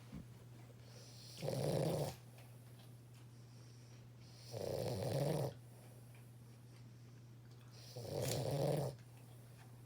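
A puppy snoring loudly in its sleep, three long snores about three seconds apart.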